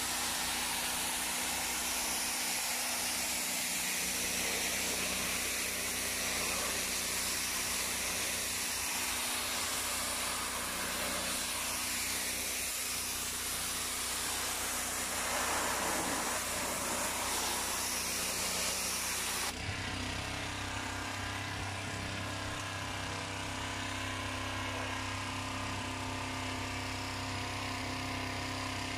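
Petrol high-pressure washer running steadily: an engine hum under the hiss of the water jet striking concrete. About two-thirds of the way through the sound changes abruptly to a steadier, lower hum with less hiss.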